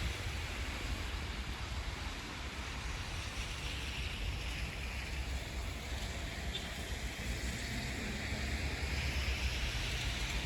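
Road traffic running past, a steady wash of tyre and engine noise that swells a couple of times as vehicles go by, with wind buffeting the microphone underneath.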